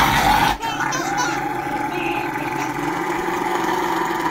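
A Rottweiler growling and grumbling in one long drawn-out vocal protest while its nails are being clipped, loudest in the first half second.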